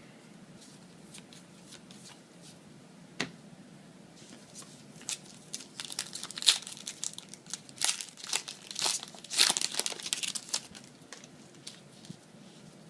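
Yu-Gi-Oh booster pack wrapper being crinkled and torn open, in a run of crackling from about five to ten seconds in, with a single sharp click about three seconds in.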